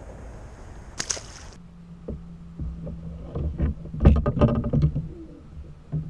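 Rushing outdoor noise on a fishing kayak, cut off about a second and a half in. It is followed by a series of knocks and rattles of gear and handling on the plastic kayak, loudest about four seconds in, over a steady low hum.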